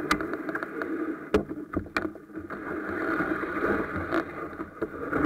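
Canoe being pushed off and launched: the hull scraping and water sloshing, with a few sharp knocks on the boat.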